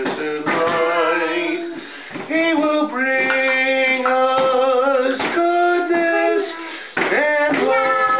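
A man singing solo, holding long notes through the closing line of a Christmas carol, with a short break for breath near the end.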